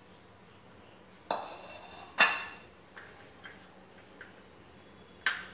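Metal kitchen utensils clinking: about six sharp clinks, each with a brief ring. The loudest comes about two seconds in, with a strong one near the end and fainter taps between.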